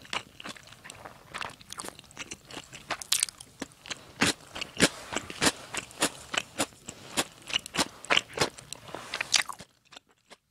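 Close-miked chewing of crunchy food: a run of sharp, crisp crunches about two or three a second, which stop near the end.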